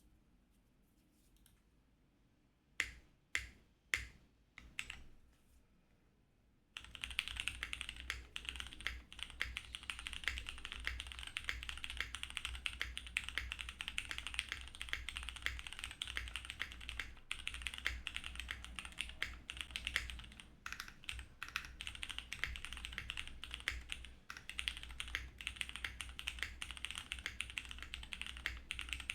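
Mechanical keyboard with Cherry MX Grey tactile switches on a POM plate, with DCS-profile keycaps: a few single keystrokes about three seconds in, then from about seven seconds in, fast continuous typing.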